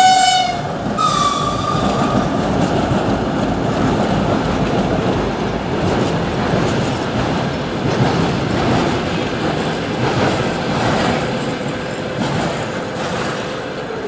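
DM62 diesel locomotive hauling an SM-2 snowplough train past, its wheels clattering over the rail joints. Right at the start come two short horn sounds, the second higher-pitched and slightly longer, followed by the steady noise of the passing train that fades near the end.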